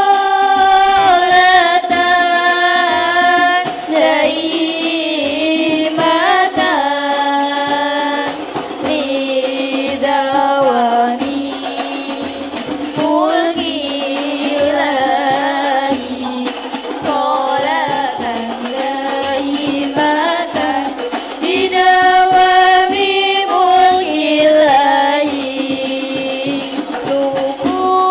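Sholawat, a devotional song, sung by a group of children's voices over a steady beat of rebana frame drums.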